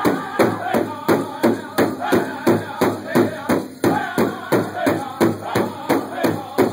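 Powwow drum group beating a large hide-covered drum together in a steady rhythm of about three strokes a second, with men's voices singing over the beat.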